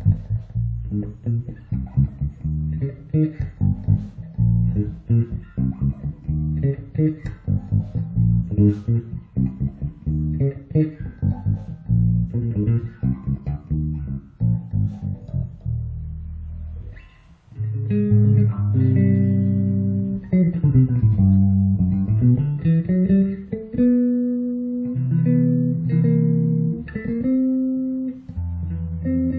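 FL Custom Master Custom 006 five-string electric bass played solo: a fast run of short, percussive plucked notes, then from about 17 s in longer held notes, with a slide down in pitch and back up, and two notes sounding together.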